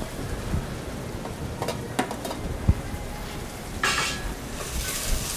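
Chopped carrots and celery sizzling in hot olive oil in a stainless steel stockpot: a steady frying hiss, with a few light knocks and a brief louder hiss about four seconds in.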